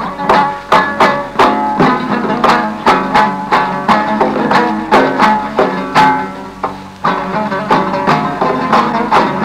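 Instrumental passage of traditional Uzbek maqom music: a plucked string instrument plays a quick melody of sharply attacked notes, about three a second.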